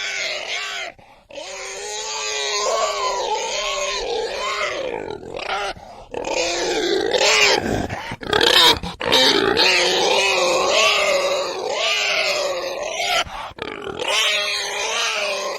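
Pigs grunting and squealing over one another, with only a few brief breaks.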